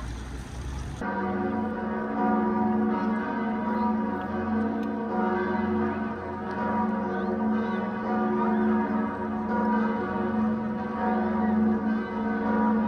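Church bells pealing: several bells ringing together in a steady, overlapping peal that starts abruptly about a second in.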